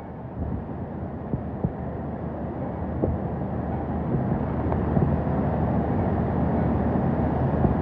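Hurricane wind rushing and buffeting the microphone, building over the first few seconds and then holding steady, with a few faint knocks.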